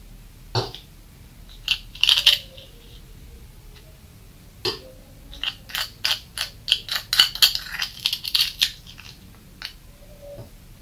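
Metal teaspoon clinking and scraping against a small metal dish while scooping sugar, with sugar crunching under the spoon. A few separate clinks in the first half, then a quick run of clinks and scrapes from about five to nine seconds in.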